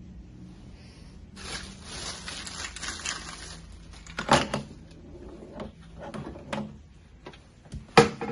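Clear plastic wrapping crinkling as it is pulled off a stainless-steel bubble waffle maker, followed by sharp knocks as the steel unit is handled on the table, the loudest near the end.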